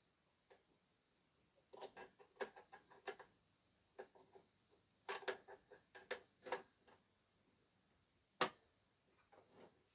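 Faint scattered taps, clicks and light knocks as the t.amp E1500 power amplifier's case is handled and shifted into place, with one sharper knock about eight and a half seconds in.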